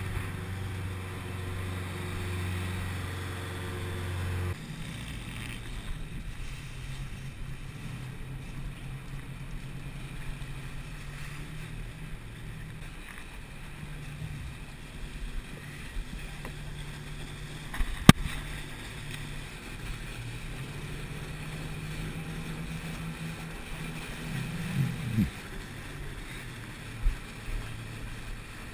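Tugboat's diesel engine running steadily with water washing along the hull. The engine hum is stronger for the first few seconds and then drops, and a single sharp click comes about two-thirds of the way through.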